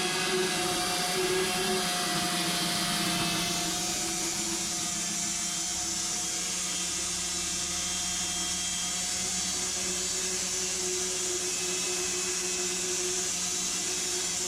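A machine running steadily: a constant hum with a few held tones under a hiss, which turns brighter and more sibilant about four seconds in.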